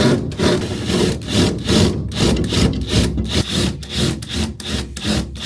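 Hand sawing: a saw worked back and forth in even strokes, about two a second, stopping just after the end.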